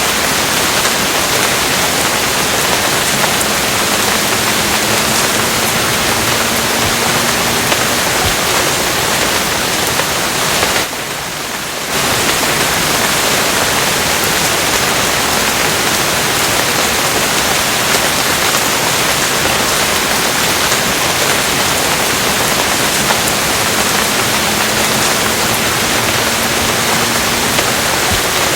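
Steady, dense rainfall, an even hiss, that drops briefly for about a second near the middle.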